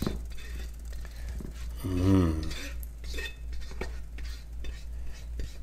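A cooking utensil scraping and clinking against a wok in short strokes as shrimp and vegetables are pushed out of it into a ceramic baking dish. A short hummed vocal sound about two seconds in.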